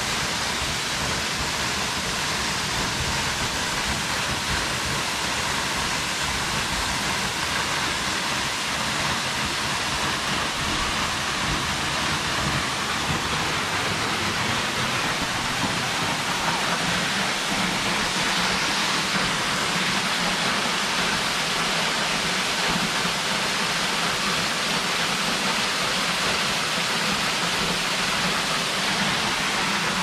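Steady rush of a waterfall, an even wash of falling water that grows a little louder in the second half.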